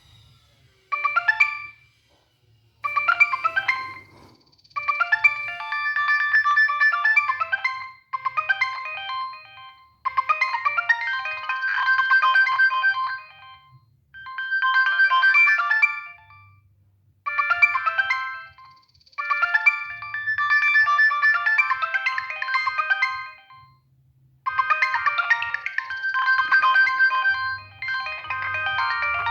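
Polyphonic ringtone playing from a Nokia 6585i phone: a bright many-note melody in short phrases of one to three seconds, with brief pauses between them.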